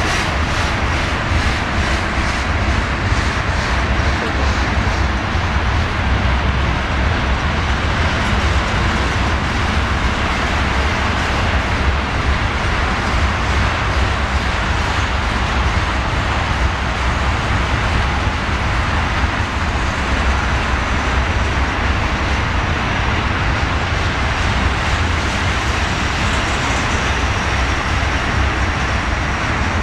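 A long string of ethanol tank cars rolling past, a steady rumble of steel wheels on rail that holds unbroken throughout.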